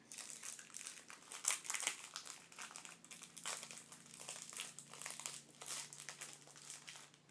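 Trading-card structure deck box and the plastic wrapping around its cards crinkling and rustling in the hands as they are worked open carefully: a steady run of light, irregular crackles.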